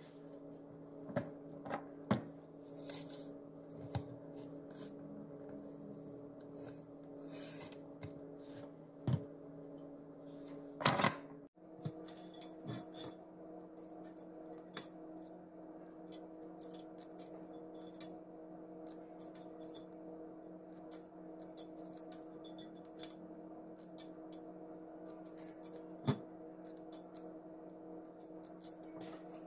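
Moringa (malunggay) leaves being picked off their stems by hand into a stainless steel colander: scattered small snaps and ticks over a steady hum. Earlier, clicks and rustles of handling food, with a short louder rustle just before the leaf-picking starts.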